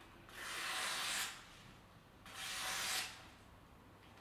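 A stainless steel kitchen knife slicing through a sheet of paper twice, each stroke a hiss of about a second: a paper-cutting test of the blade's sharpness.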